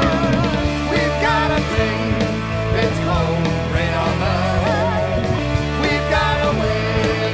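Rock song with a lead singer over guitar, bass and drums, used as a soundtrack.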